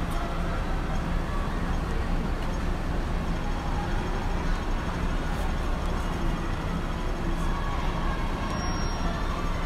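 Steady street ambience: the low rumble of idling vehicles and traffic under a background murmur of crowd voices, with no bangs or shots.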